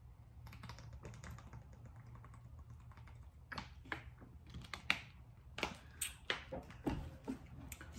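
Soft, irregular clicks and smacks close to the microphone from a person drinking from a plastic bottle and then handling food with her fingers. The clicks start about three and a half seconds in and come several a second after a faint stretch.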